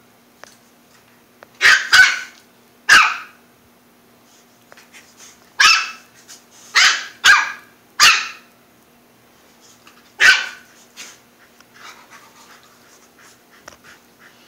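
A small puppy's high-pitched play barks: about eight short, sharp yaps in little clusters, then fainter scuffling over the last few seconds.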